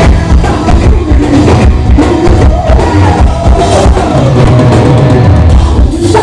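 Rock band playing live with drum kit and bass, recorded loud and crowded from within the audience.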